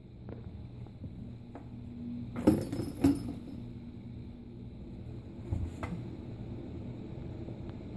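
Cat toys clinking and clattering inside a cardboard box as a kitten plays with them: two sharp clinks about two and a half and three seconds in, a fainter one near six seconds, with a few small ticks before.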